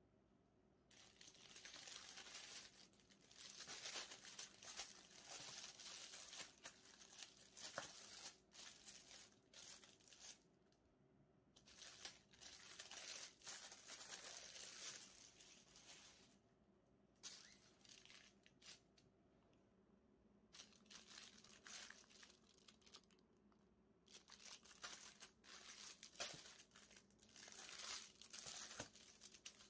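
Clear plastic shrink-wrap crinkling and tearing as it is handled and peeled off a packaged photobook. It comes in several bursts of rustling with short quiet pauses between them.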